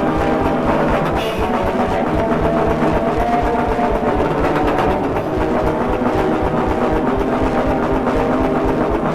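Raw, lo-fi black metal: fast, dense drumming under held, droning notes, with no vocals.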